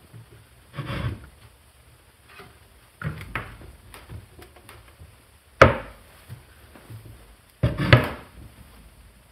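Wooden cupboard doors being handled: a few bouts of knocking and rubbing scrapes, with a sharp click about halfway through.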